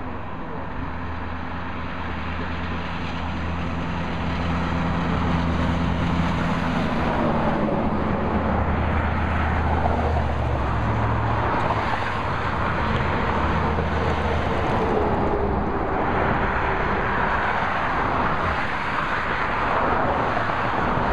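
Highway traffic passing close by: a semi-truck's diesel engine hums low and steady as it approaches and goes past, fading out a little past halfway. Tyre and road noise from passing vehicles swells a few seconds in and stays loud to the end.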